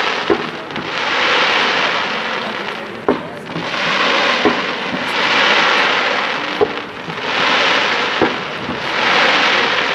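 Fireworks display: fan-shaped volleys of comets fired one after another, each a hissing rush lasting a second or two, with several sharp pops between them.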